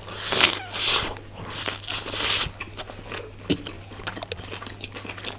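Two people biting into slices of Domino's Veg Extravaganza cheese-burst pizza and chewing. A few loud bites come in the first two and a half seconds, then quieter chewing with many small clicks.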